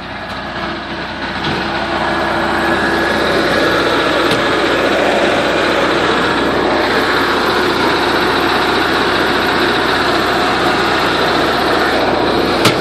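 Portable generator engine running steadily, growing louder over the first couple of seconds, with a sharp click near the end.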